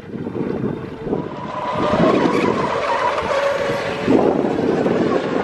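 Radio-controlled model boats running at speed across the water: a high, wavering motor whine over the rushing hiss of hulls and spray, getting louder about two seconds in.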